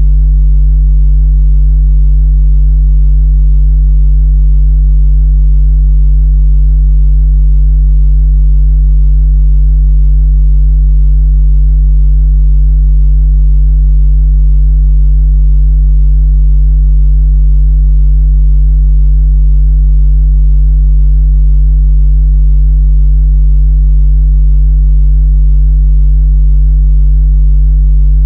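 Loud, unchanging electronic drone of experimental noise music: a deep steady hum with fainter higher tones stacked above it.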